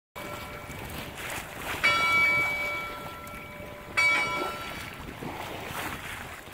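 A bell is struck twice, about two seconds apart, each strike clanging and then ringing out slowly, over a steady hiss of wind and surf.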